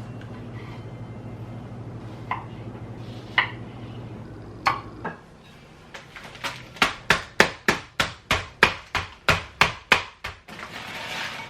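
Knife chopping on a cutting board: a few spaced chops, then a quick even run of about a dozen chops, about three a second. A short hiss follows near the end.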